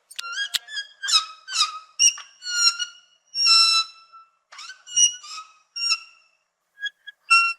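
Sloth squeaking: a quick series of short, high-pitched squeaky calls, one of them held a little longer about halfway through, with a brief pause near the end before the calls start again.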